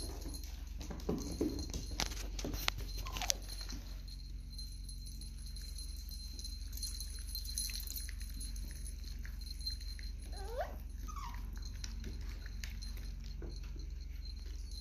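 Miniature dachshund puppies whimpering: a couple of short whines about a second in and one rising whine about ten seconds in. A run of sharp clicks and taps comes around two to three seconds in, over a low steady hum.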